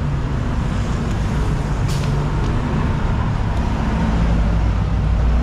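Street traffic with vehicle engines running past, and a brief hiss about two seconds in. Near the end a deep engine rumble grows louder as a heavy vehicle draws close.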